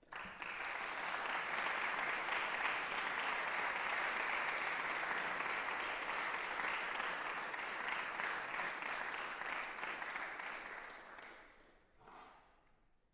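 Audience applauding, starting suddenly at the end of a piece, holding steady for about eleven seconds and then dying away.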